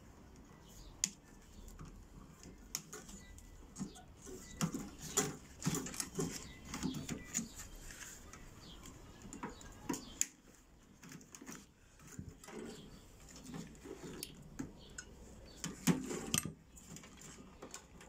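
Irregular light clicks, clinks and rattles of hands working at the wiring and parts inside a microwave's metal casing during disassembly, busiest in the middle stretch with another burst near the end.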